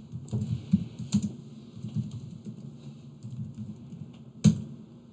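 Typing on a computer keyboard: a string of irregular keystrokes, with one louder keystroke near the end as the Enter key runs the command.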